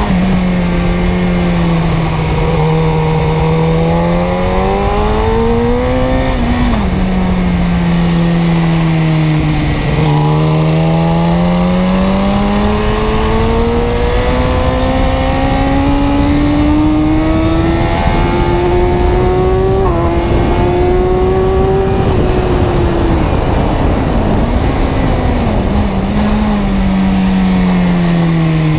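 A car engine running and revving under changing load, its pitch rising and falling: a short climb and drop early, then a long steady rise through the middle with a brief step about two-thirds of the way through, before falling away.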